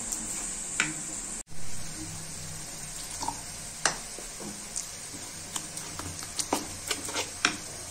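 Spoon beating thick besan and suji (gram flour and semolina) batter in a bowl: irregular wet squelches, with clicks and scrapes of the spoon against the bowl.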